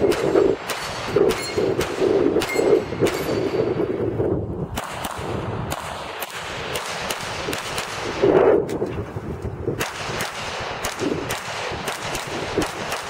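Glock pistol shots fired in quick strings throughout. Steel plate targets ring briefly after hits in the first few seconds.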